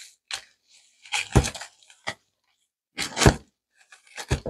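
Several knocks and thuds with quiet between them, two of them louder, from a plant pot and its root ball being handled on a table during repotting.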